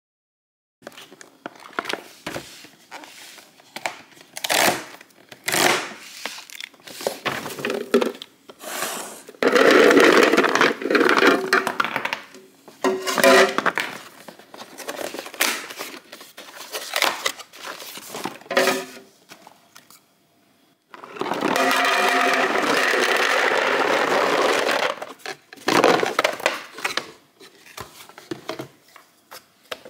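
A cardboard box of 10-in-1 dishwashing tablets being torn open and handled, with crackles and clicks. Then the tablets are tipped into a clear plastic container, a clattering pour of about four seconds.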